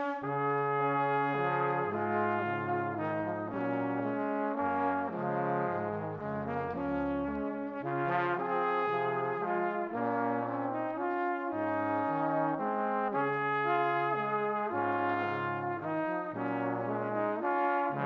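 Instrumental background music: brass playing held chords over a slowly stepping bass line.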